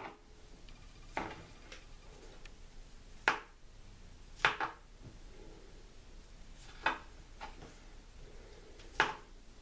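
Short kitchen knocks and scrapes, about five of them, a second or two apart, as cooled boiled potatoes are handled and peeled.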